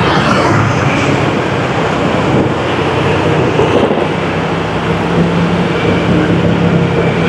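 Steady road traffic noise heard while travelling through a road underpass: a low, even engine hum over road noise, without a break.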